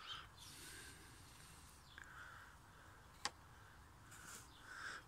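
Near silence: faint outdoor background, with one sharp click a little past three seconds in.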